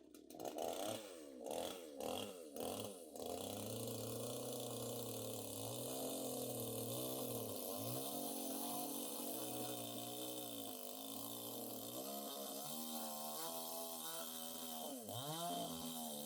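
Chainsaw engine running steadily, its pitch wavering up and down as the throttle changes, after a few sharp knocks in the first three seconds.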